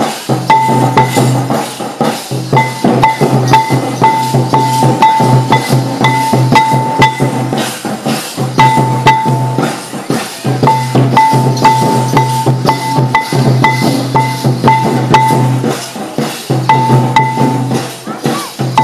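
Santali Karam dance music: busy drumming with a short high note repeated about twice a second in runs, breaking off briefly a few times.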